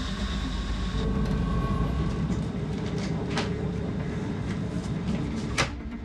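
Steady low rumble of the crab boat's engine heard inside the cabin, with a few light knocks and one sharp knock about five and a half seconds in.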